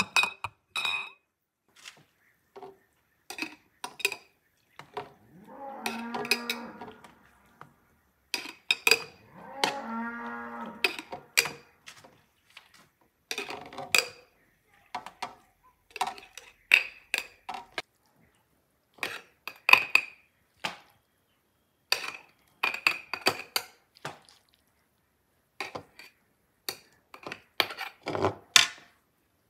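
Metal spoon clinking against glass jars and jars knocking down on a table as chopped green beans are packed in: many sharp clicks and taps throughout. A cow moos twice in the background, each call lasting about a second and a half.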